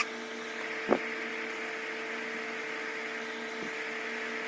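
A steady electrical hum, with a click at the start and a single knock about a second in.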